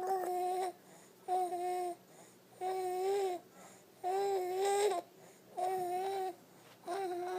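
Baby boy cooing: a string of six short held vowel sounds, about one every second and a bit, each on a fairly steady high pitch.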